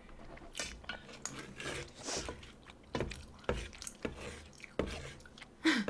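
A wooden spoon scraping and knocking against a metal tray of fried rice, a scattering of quiet separate clicks and knocks with one brief scrape about two seconds in.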